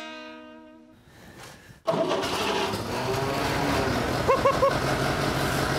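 Old Ferguson tractor's four-cylinder engine starting abruptly about two seconds in and running steadily, its first run after its blocked fuel line was cleared. A few brief squeaks come through about four and a half seconds in.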